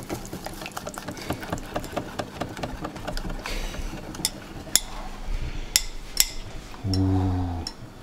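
Rapid light clicking and tapping of kitchen utensils against dishes, followed by a few separate sharper clicks. A short low hum of a man's voice about seven seconds in.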